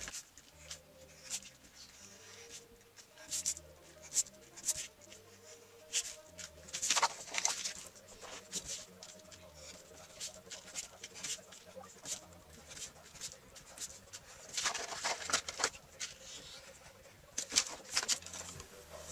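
Craft knife slicing through heavy cardstock on a cutting mat in short scratchy strokes, coming in clusters with pauses between, while the sheet is handled.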